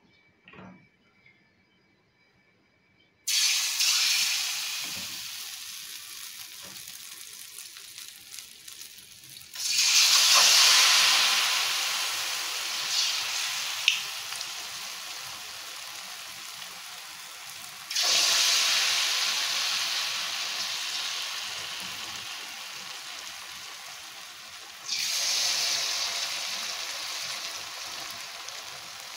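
Spoonfuls of anchovy fritter batter frying in hot oil in a wok. Four times the sizzle flares up suddenly as fresh batter goes in, then slowly dies down.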